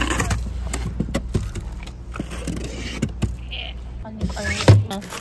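Hands rummaging through plastic-wrapped ice cups in a convenience-store chest freezer: rustling and short knocks over a steady low hum, with a louder thump near the end.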